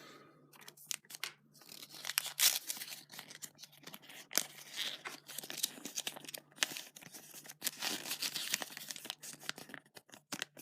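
Surprise-egg wrapper crinkling and tearing in the hands, with many irregular small crackles and clicks.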